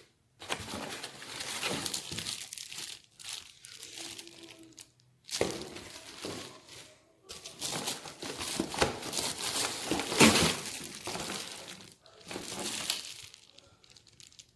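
Packaging crinkling and rustling as it is handled, in irregular bursts with short pauses between them.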